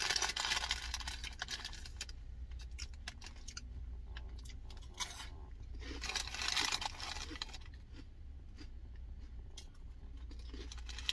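Someone eating crunchy Taco Bell cinnamon twists: irregular crunching and crackling chews, loudest at the start and again about six seconds in, with scattered small clicks, over a steady low hum.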